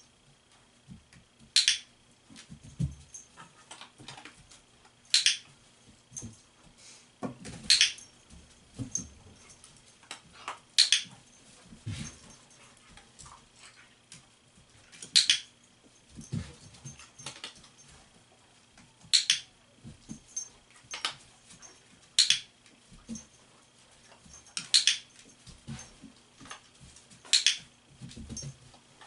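A dog pawing and nosing at a small plastic target disc on a rubber mat: about nine sharp clicks spaced a few seconds apart, with softer dull thuds in between.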